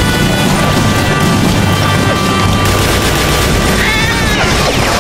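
Action-film soundtrack: music over a dense, loud mix of gunfire and crashing impacts.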